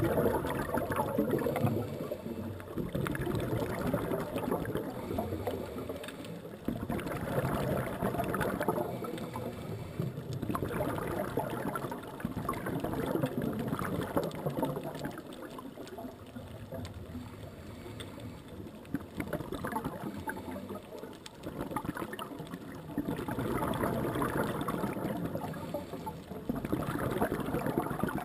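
Underwater sound of a scuba diver's exhaled regulator bubbles, rising in gurgling bursts every few seconds with quieter stretches between, over constant faint crackling.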